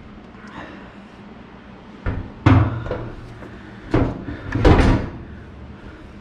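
Fuel tank knocking and thudding against a steel tube-frame chassis as it is worked up into place from underneath: several hollow knocks and thumps starting about two seconds in.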